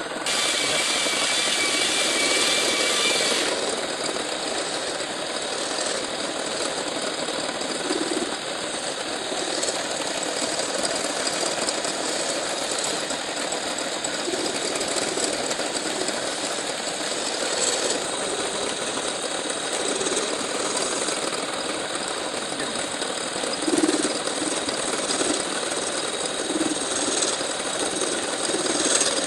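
Metal lathe running and turning a steel workpiece: a steady machine noise with the hiss of the tool cutting. A high-pitched whine sits on top for the first few seconds.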